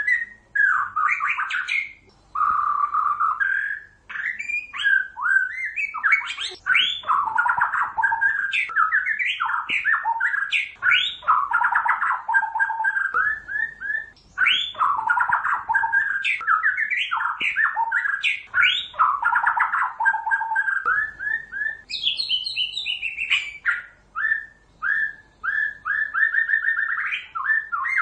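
White-rumped shama singing a long, varied song of quick rising and falling notes in phrases separated by short pauses. Near the end comes a fast run of short repeated notes.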